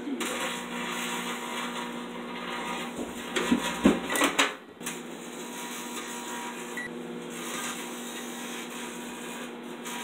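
Samsung microwave oven running with a steady hum while aluminium foil inside arcs, crackling and buzzing. A few louder sharp pops come about four seconds in.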